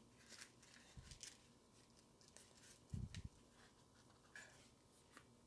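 Near silence with faint handling noises from a speaker being fitted into a motorcycle helmet's padding: a soft bump about a second in, a pair of stronger bumps around three seconds, and small scattered clicks.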